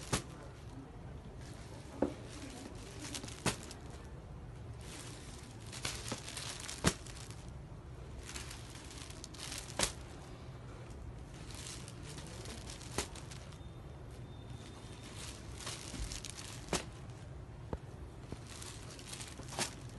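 Folded silk sarees rustling and crinkling as they are moved and laid out by hand, with scattered sharp clicks, about ten over the span, the loudest about a third of the way through.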